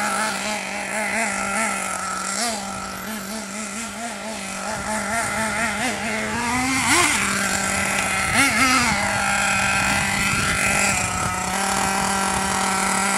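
Nitro engine of a Hobao Hyper 8.5 1/8-scale RC buggy running steadily at a high pitch that wavers with small throttle changes. It revs up briefly twice, about seven and about eight and a half seconds in.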